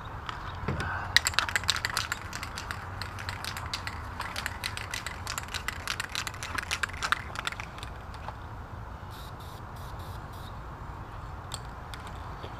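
Aerosol spray paint can being shaken, its mixing ball rattling in a quick run of clicks for several seconds, then a few scattered clicks, over a low steady rumble.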